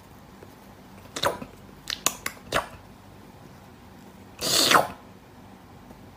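Cat licking its front paw: a few short, wet licking clicks, then a louder burst of noise about half a second long, about four and a half seconds in.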